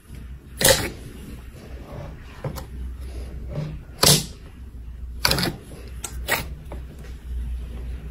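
Hand squishing and pulling thick, glossy slime, with several short, sharp squelching pops as air pockets burst in it.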